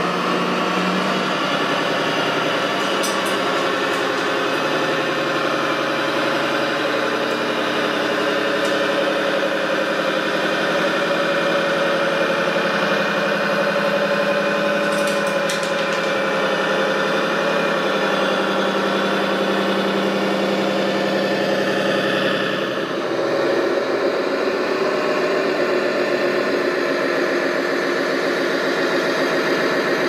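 Simulated diesel engine sound of a radio-controlled MAN dump truck, running steadily like an idling truck, with a brief dip and change in the engine note about 23 seconds in.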